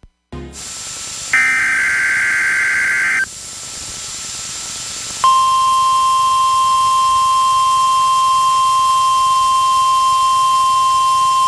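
Weather radio receiver: a click and static hiss, then about two seconds of SAME digital header data warbling, then the steady 1050 Hz NOAA Weather Radio alarm tone starting about five seconds in and holding. It is the alert tone that announces an emergency broadcast.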